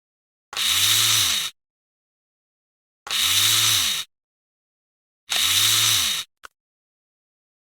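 A short whirring sound effect, like a small power tool spinning up and back down, played three times about two and a half seconds apart with dead silence between, followed by a brief click. The three copies are identical, a stock effect laid over the edit.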